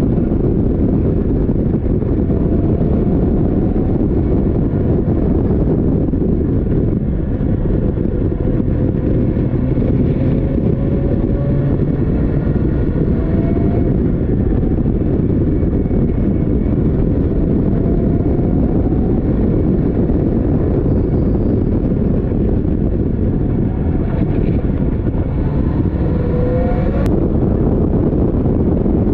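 Caterham Seven race car's engine at racing speed heard from the open cockpit, buried under heavy wind buffeting on the microphone; its note rises several times as it accelerates out of corners. A short sharp click near the end.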